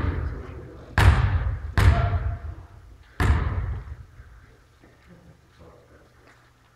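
A basketball bouncing on the court: four loud thumps in the first three and a half seconds, unevenly spaced, each echoing in the gym, then quieter.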